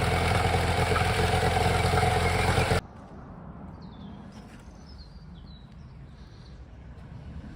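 Honda 8 hp four-stroke outboard motor idling steadily, running on its freshly cleaned carburetor after starting on the first pull. The engine sound cuts off suddenly a little under three seconds in. A bird then chirps a few times over faint background.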